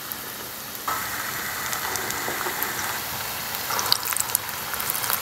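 Urad dal vadas deep-frying in hot oil: a steady sizzle with scattered crackles and pops, getting louder about a second in.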